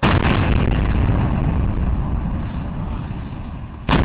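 Explosive demolition charges detonating: a sudden loud blast, then a long rumble that slowly fades, and a second sharp blast near the end.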